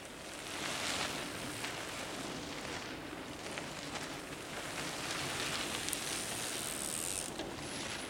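Mountain bikes riding past on a dirt forest trail: knobby tyres crackling and crunching over soil and dry leaves. A brief high whine comes near the end.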